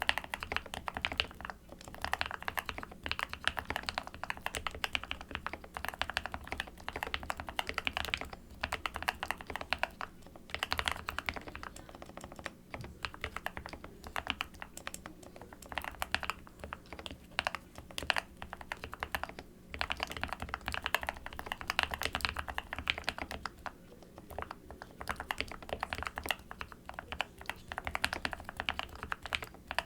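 Continuous fast typing on a GK64S/SK64S mechanical keyboard with linear Gateron optical black switches, keystrokes clacking in quick runs broken by short pauses.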